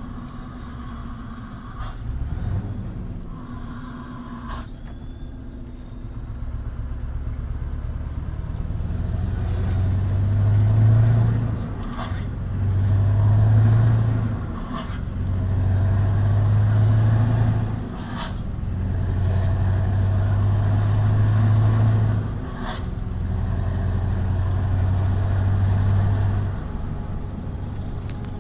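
Scania R500's V8 diesel heard from inside the cab, running low at first and then pulling up through the gears. The engine note swells and drops in steps every three to four seconds, with a short click at each gear change.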